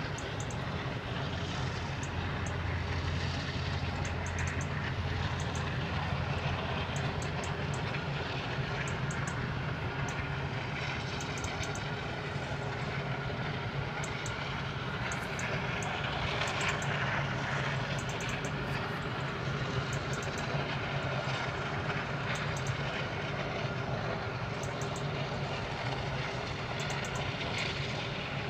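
Steady industrial roar from a coal-fired power station: a continuous rushing noise with a low hum underneath.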